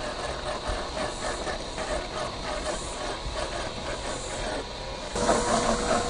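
1/6-scale RC crawler (FMS Suzuki Jimny LJ1) driving slowly over a gravel dirt trail: electric motor and geared drivetrain whirring, with tyres rolling over small stones. About five seconds in it gets louder and a steady whine comes in.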